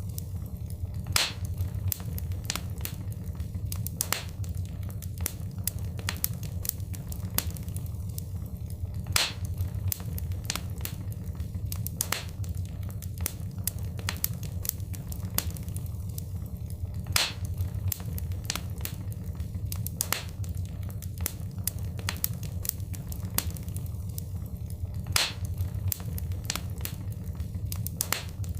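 Wood fire crackling in a fireplace: a constant low rumble of the burning with frequent small snaps and a louder pop every few seconds.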